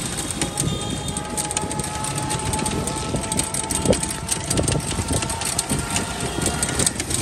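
Ride in an open-sided rickshaw on a wet road: steady running noise with a low rumble and many small rattles and knocks, wind buffeting the microphone, and a faint steady whine.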